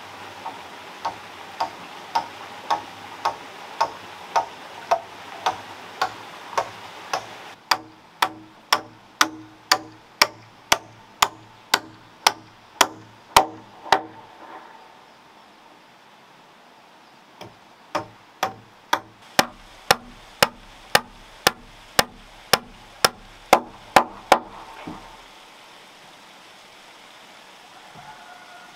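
Hammer blows on a timber roof-frame beam, a steady run of sharp strikes about two a second. They come in three runs: the first softer, then a louder run, a pause of a few seconds, and a last run that stops a few seconds before the end.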